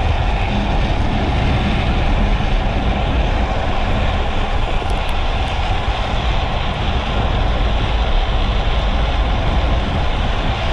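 Steady wind noise on the camera microphone with the rumble of trike wheels rolling on asphalt, descending at about 40 km/h.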